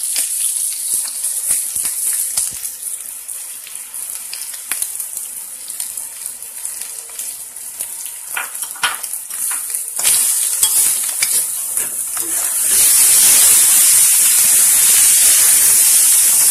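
Ash gourd and prawns sizzling in a kadai while a metal spatula stirs them, with scattered scrapes and taps of the spatula on the pan. About thirteen seconds in, the sizzle swells much louder.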